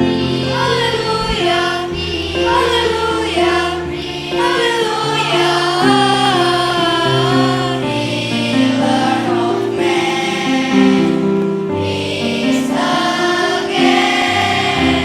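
Elementary-school children's choir singing a Christian song in several voices over instrumental accompaniment with held bass notes.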